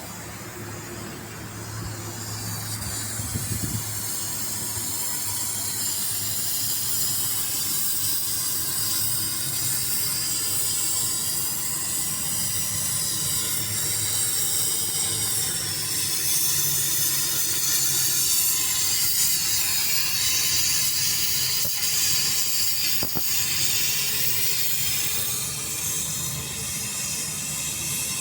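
Steady high-pitched hiss of escaping gas, growing louder over the first few seconds and then holding steady, with a single sharp click near the end.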